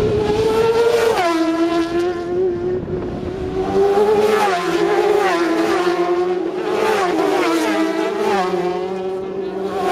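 Racing motorcycles accelerating past one after another, each engine's pitch dropping sharply at every gear change, several times.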